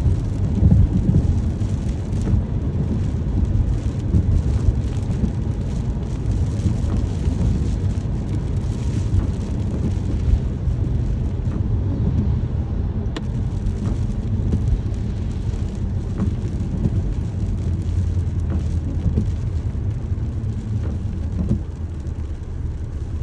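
Steady rain noise, full and deep, with most of its weight in a low rumble.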